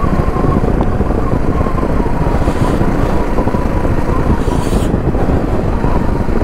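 Motorcycle riding along the road: engine running steadily under way, with heavy wind rushing over the microphone and a steady whine that sags a little in pitch.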